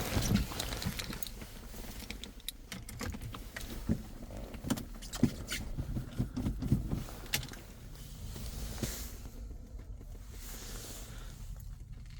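2.0 HDi diesel engine running just after a cold start at about −15 °C, with a very strong knocking sound. Sharp, irregular clicks and knocks sit over the engine for the first seven or so seconds, then it settles into a steadier running sound.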